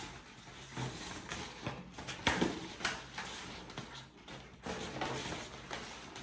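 Inflated latex modelling balloons being handled and rubbed together, with irregular rubbing noise and several sharp taps and clicks.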